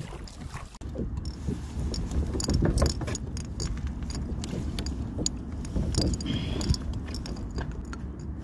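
Light clicks, knocks and rattles of hands working the lid of a live-bait bucket and the gear around it, over a steady low rumble.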